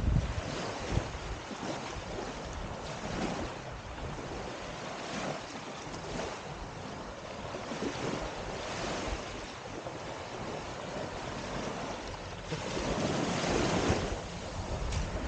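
Small waves lapping and washing up onto a sandy shore in slow surges, with wind rumbling on the microphone. A louder wash swells up near the end.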